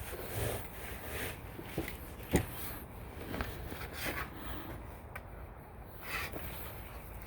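Handling of a screen door frame and its old screening: light rubbing and scattered small clicks, with one sharp knock about two and a half seconds in.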